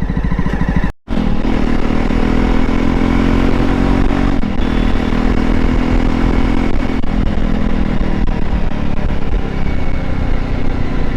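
Jawa Classic BS4 motorcycle's single-cylinder engine running under way at a steady pace, its exhaust fitted with changed dB killers, giving the thump its rider praises. The sound cuts out for a split second about a second in.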